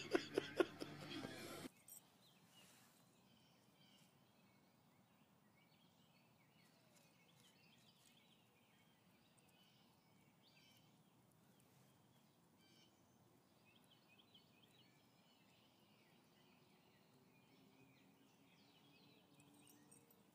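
A brief run of loud, rapid pulsing sound in the first two seconds, then near silence with faint, scattered bird chirps.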